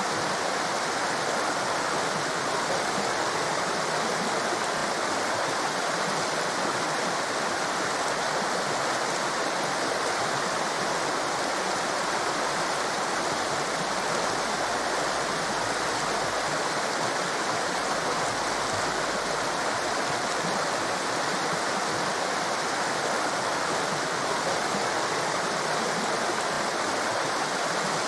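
A torrent of white water rushing steadily: an even, unbroken hiss-like wash of water with little low rumble.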